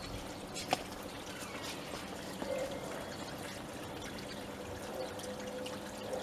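Water running steadily from a garden hose into a tarpaulin-lined pool as it fills, with one brief sharp click under a second in.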